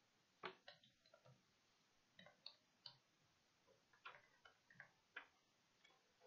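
Faint computer keyboard keystrokes typing in a barcode number by hand: a string of short, irregular clicks.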